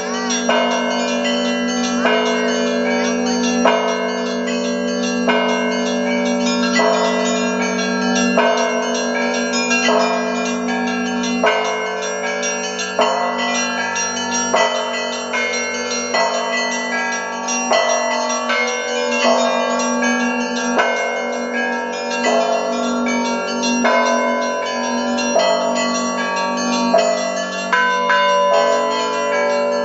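Russian church bells rung in the Orthodox zvon style by a single ringer. Smaller bells are struck in a steady repeating beat, a little more than once a second, over the sustained hum of larger bells.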